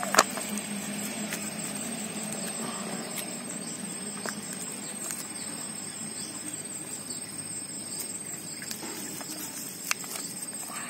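Soft rustling of soil and clicks of a thin plastic cup pot being handled, with a sharp click just after the start and another near the end, over a steady high insect trill in the background.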